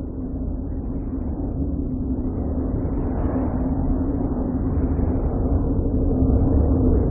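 Voyager spacecraft plasma-wave recordings made audible, as the sound of Uranus: a dense low rumble with a steady hum running through it, a higher tone joining near the end as it slowly grows louder.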